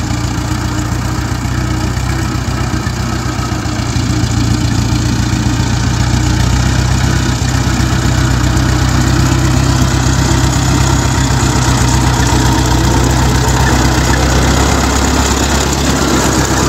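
Mahindra farm tractor's diesel engine running steadily as the tractor is driven slowly across the field, a low, even engine note that grows a little louder a few seconds in.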